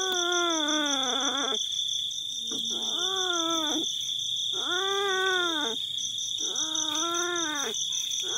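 Kitten yowling: four drawn-out wails, each about a second long, rising and then falling in pitch, with short pauses between them.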